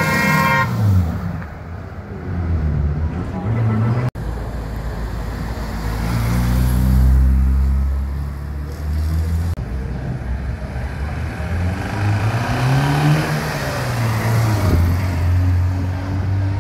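Vintage cars passing one after another, their engines running and revving up and falling away as each goes by. A car horn toots briefly at the very start.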